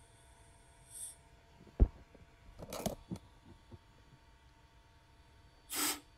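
Short bursts of compressed air from a compressor blow gun hissing through a scooter's radiator reservoir hose, a test that shows the hose is not clogged. There are three brief hisses, a faint one about a second in, a louder one just under three seconds in and one near the end, with a sharp knock and a few small clicks between them.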